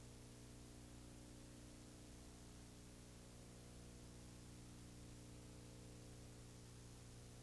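Steady low hum with a constant hiss and nothing else: the background noise of a transfer of silent film footage.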